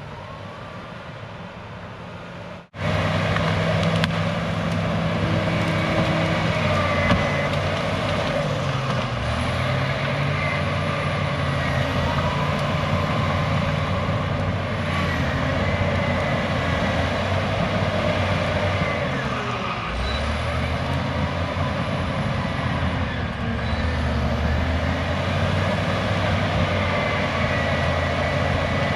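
Cat D6H bulldozer's diesel engine working under load. Its pitch dips and recovers a few times as the load changes, with a faint high whine over it. It is quieter for the first few seconds, then after an abrupt break it is loud.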